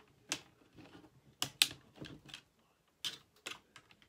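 Plastic display bezel of an HP Chromebook being pried off, its snap clips popping free in a series of sharp clicks, about half a dozen, the loudest about one and a half seconds in.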